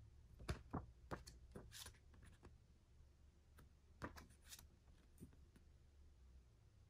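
Faint handling noises of an unboxing: a cluster of sharp clicks and a brief rustle in the first two seconds, then two more clicks about four seconds in, over a low steady hum.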